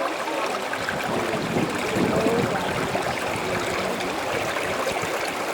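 A waterfall's water running and gurgling steadily over rock into pools.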